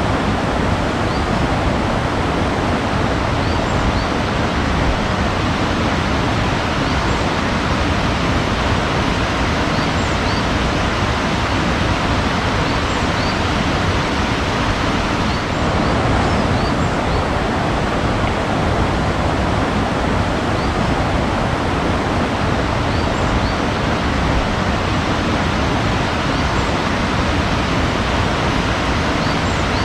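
Steady rushing water, an even full noise like a waterfall or surf, with faint high bird chirps every few seconds.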